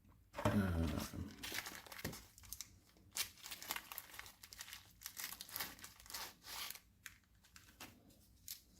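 Plastic packaging crinkling and rustling in irregular crackles as small bags of pick parts are handled and opened.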